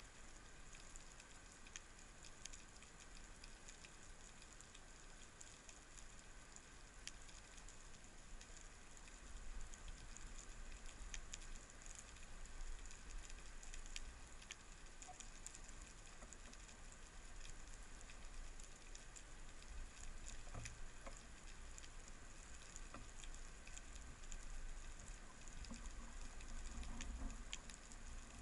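Faint underwater ambience: a dense, steady crackling and ticking like rain on a surface, the typical seabed crackle of snapping shrimp, heard through a camera housing under the water, over a low rumble.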